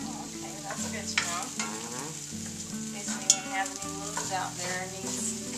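Chopped potatoes and garlic sizzling as they fry in oil in a skillet, stirred with a wooden spoon that knocks against the pan a few times.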